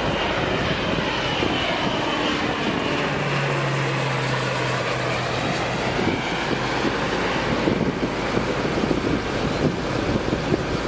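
Air Tractor crop-duster's turboprop engine and propeller during a low flyover. The sound sweeps in pitch as the plane passes overhead around the middle, then fades as it flies away. Wind buffets the microphone in the last few seconds.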